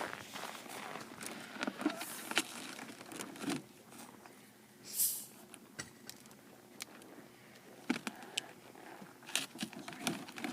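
Scattered small clicks and knocks of handling around a school model volcano as it is set off, with one short hiss about five seconds in.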